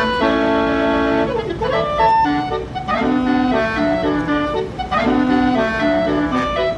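Tour bus's multi-tone basuri horn playing a melody: several held horn tones sounding together in chords that change in steps, with a pitch swoop down and back up about one and a half seconds in.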